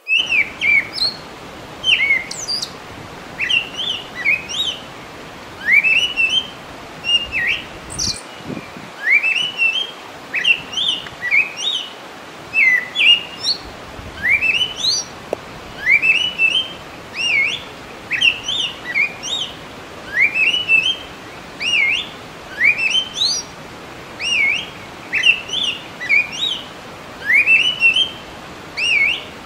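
Wild songbirds singing: bright whistled chirps and slurred rising and falling notes, repeated in short phrases every second or two.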